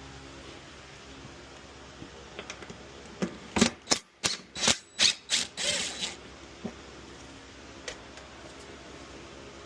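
A quick run of about ten sharp metallic clicks and clinks from hand tools and bolts during motorcycle crash bar fastener removal, bunched in about three seconds near the middle, with a few lone ticks after.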